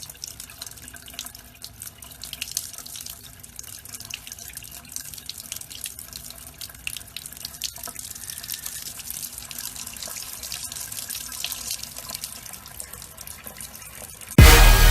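Water running and splashing in an irregular trickle, like a tap running into a sink. Loud music cuts in suddenly near the end.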